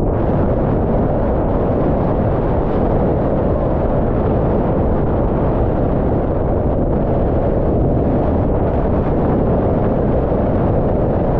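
Wind buffeting the microphone of a boom-mounted action camera, mixed with water rushing under a slalom windsurf board planing at speed: a loud, steady rumble with no letup.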